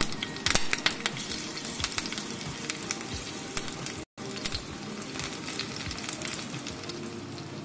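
Green chillies, chana dal and mustard seeds frying in hot ghee in a pan, a steady sizzle with many small crackles and pops. It breaks off for a moment about four seconds in.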